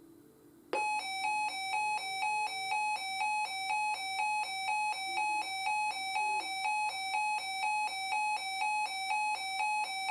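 Weather alert radio's electronic alarm tone, signalling an incoming tornado watch alert: a loud tone that switches back and forth between two close pitches about twice a second. It begins about a second in and cuts off sharply near the end, just before the broadcast voice.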